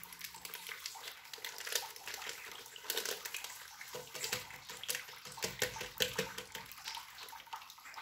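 Plastic sachet of agar-agar powder crinkling and rustling in irregular crackles as it is shaken empty over a stainless steel pot of water.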